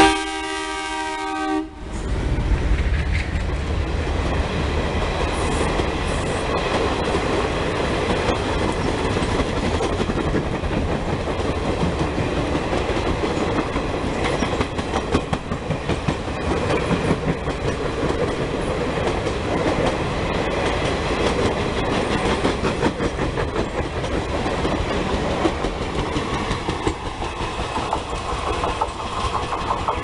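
WDM-3A diesel-electric locomotive horn sounding for about two seconds and cutting off sharply, then the locomotive and its passenger coaches passing close by with a steady rumble and wheel clatter over the rail joints.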